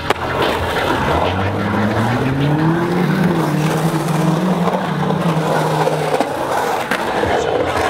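Skateboard wheels rolling and carving across a concrete bowl, a steady rumbling roll. A low hum rises in pitch about a second and a half in and holds until about six seconds in.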